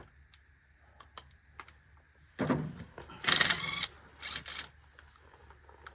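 Cordless impact driver run in three short rattling bursts, the middle one the loudest, after a few faint clicks of tool handling.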